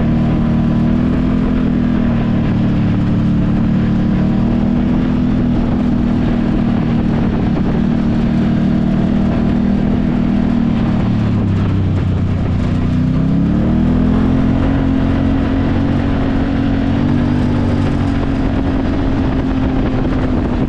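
Engine of a Can-Am Maverick side-by-side running under way. Its pitch drops about halfway through as it eases off, then glides back up as it accelerates again.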